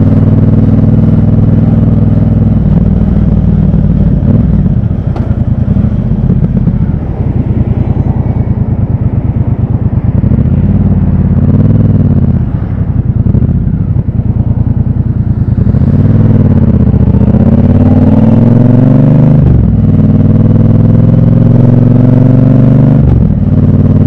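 Triumph Bonneville Bobber's 1200 cc parallel-twin engine and exhaust under way in slow traffic. The note rises and falls with small throttle openings, then pulls up in pitch about two-thirds in, dipping sharply twice near the end.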